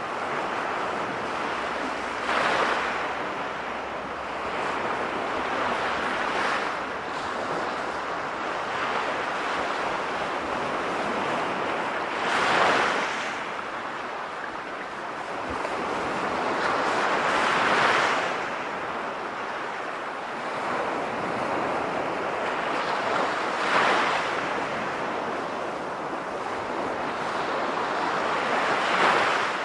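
Recorded sea waves: a steady wash of surf, swelling five times into louder breaking waves several seconds apart.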